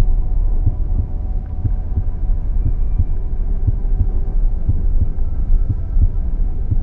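Heartbeat: a steady rhythm of low, regular thumps over a constant low hum.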